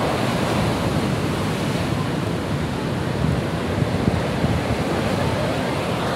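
Ocean surf breaking and washing onto the beach, a steady rushing noise, with wind buffeting the microphone in low, uneven rumbles.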